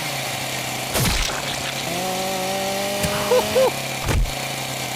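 Cartoon chainsaw sound effect from the animation's soundtrack: a steady drone with a few sharp hits, and a held tone that wavers near its end.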